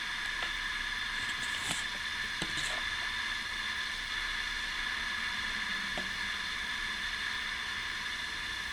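Steady hiss of recording noise, with a few faint clicks from small objects being handled.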